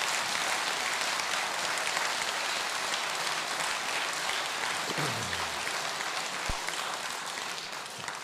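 Audience applauding steadily, dying away near the end, with a brief falling sound about five seconds in.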